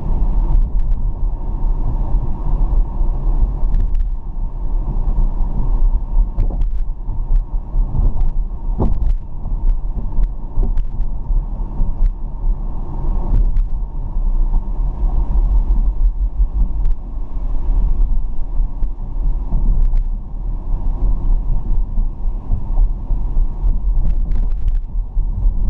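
Car moving along a road, heard as a steady low rumble of engine and road noise with scattered light clicks.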